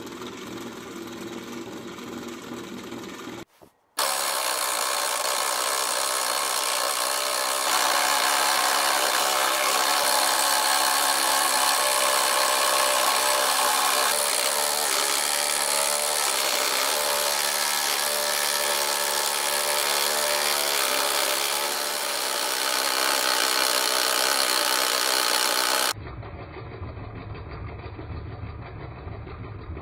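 Small DC motor driving a homemade scroll saw through a crank, the fretsaw blade stroking up and down. For most of the time the blade cuts a thin sheet fed by hand, a loud steady rasp over the motor's whine. It stops briefly about three and a half seconds in, and near the end only the saw runs, quieter.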